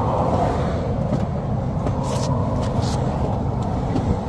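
Steady rumble of interstate traffic passing close by, with a few faint clicks.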